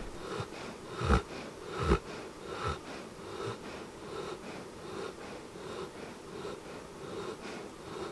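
An Old English Sheepdog snoring in its sleep: a regular run of wheezy, snorting breaths, the two loudest about one and two seconds in, the rest softer.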